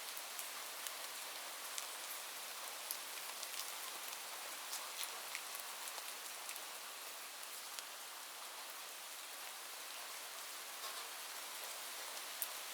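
Light rain falling steadily, a soft even hiss with scattered individual drops ticking sharply on a surface.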